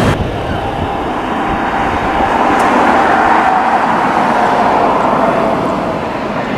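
Citilink Airbus A320-214's CFM56 jet engines on final approach with the gear down: a steady jet rumble with a whine, swelling a couple of seconds in and easing slightly near the end.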